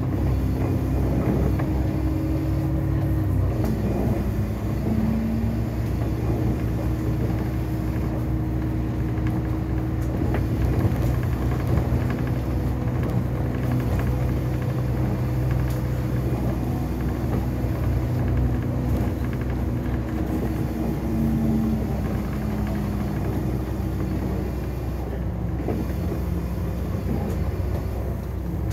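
Double-decker bus running along a wet road, heard from the upper deck: a steady engine and drivetrain hum that shifts pitch a few times as the bus changes speed, over tyre and road noise.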